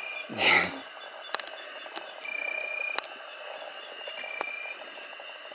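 Night rainforest insects calling: several long, steady, high-pitched trills at different pitches taking turns over a constant chorus. About half a second in there is a brief loud noise close to the microphone, and a few sharp clicks follow.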